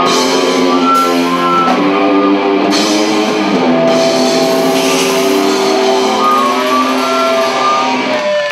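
A live metal band playing loud: distorted electric guitar and bass holding sustained chords over a drum kit with cymbals. The music stops near the end.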